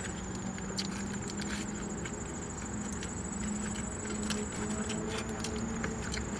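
Close-up chewing of a bacon cheeseburger: scattered small clicks and crunches of crispy bacon in the mouth, over a steady low hum and a faint high-pitched whine.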